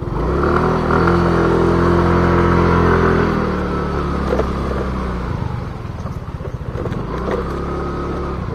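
Yamaha motor scooter's engine pulling away under throttle for about three seconds, then easing off to a lower, steady run. A couple of small knocks come through part-way along.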